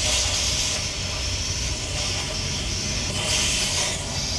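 Compressed air hissing steadily from a leaking air-operated engine fan clutch on a heavy truck, with a low hum underneath. The leak is coming from the clutch itself rather than its hose fitting.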